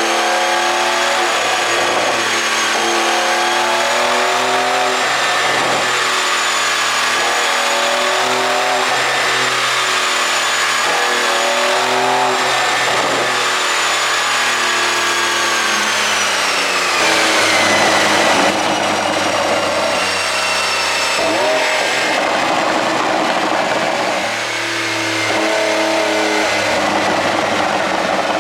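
Porsche 992 Carrera 4 GTS twin-turbo flat-six with an aftermarket ECU pop tune, revved repeatedly in short blips about every two seconds, with a steady high whine above. The revving eases about two-thirds of the way through and picks up again near the end.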